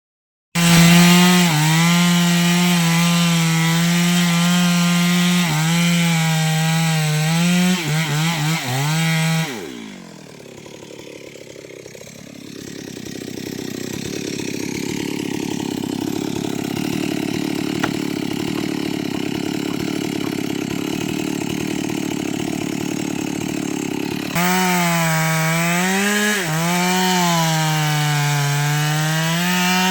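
Stihl MS 382 two-stroke chainsaw running at high revs while cutting wood, its pitch dipping and bobbing under load. About ten seconds in the revs drop sharply, a steadier, duller noise runs through the middle, and near the end the saw is back at full revs, its pitch rising and falling as it cuts.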